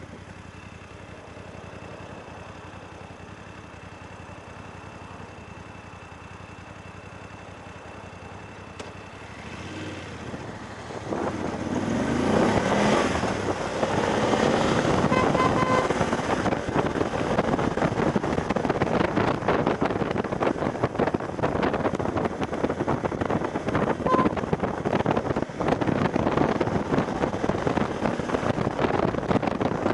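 BMW F750GS parallel-twin engine running steadily at low speed, then pulling away about a third of the way in, its pitch rising as it accelerates. Heavy wind buffeting on the helmet-mounted camera's microphone takes over at speed.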